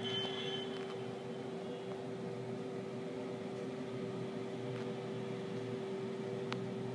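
Steady machine hum holding one constant tone over a low rumble, with a faint click about six and a half seconds in.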